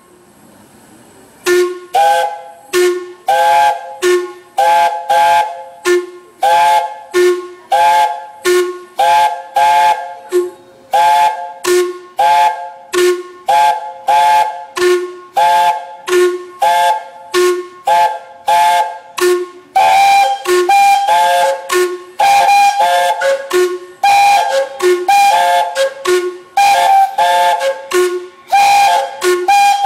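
Several narrow-gauge steam locomotives' whistles playing a tune together in short, rhythmic toots, starting about a second and a half in. A low whistle sounds on the beat and is answered by chords of higher whistles. About 20 seconds in, more whistles join and the sound gets fuller and higher.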